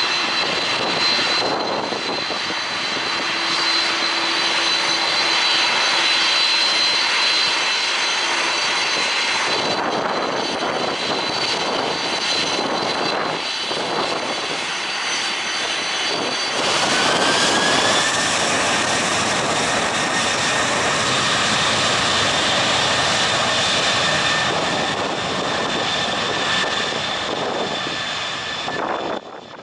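Boeing 747-400 freighter's four turbofan engines at high thrust as the jet rolls down the runway past and away from the listener. A loud, steady jet roar carries a high whine, and a second whine rises in pitch a little over halfway through.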